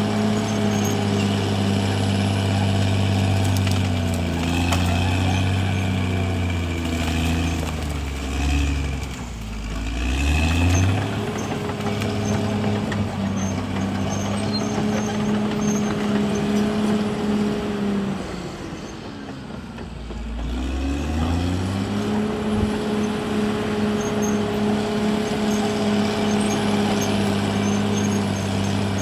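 CAT D6R XL bulldozer's diesel engine running hard and steady. Twice, about nine and about nineteen seconds in, the engine speed drops away and then climbs back up.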